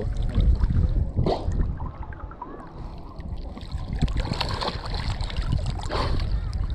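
Wind rumbling on the microphone over shallow sea water sloshing and splashing, with a few faint voices in the distance.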